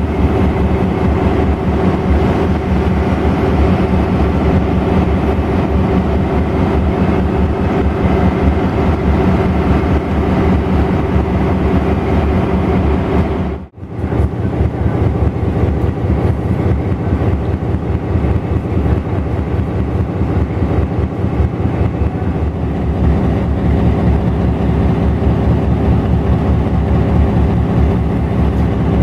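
Streamlined cab-unit diesel locomotive's engines running steadily, a dense rumble with steady humming tones over it. The sound cuts out for a moment about halfway through.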